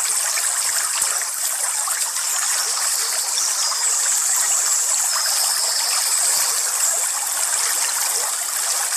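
Waterfall water rushing and splashing steadily into a pool, an even rush of water without a break.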